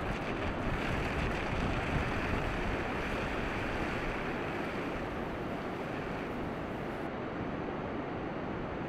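Steady rush of ocean surf breaking on a beach, with wind.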